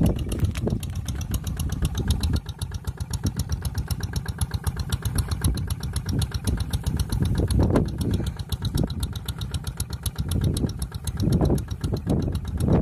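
Single-cylinder diesel engine of a Quick G1000 two-wheel hand tractor running with a rapid, steady firing beat while it ploughs through deep paddy mud, with brief louder surges now and then.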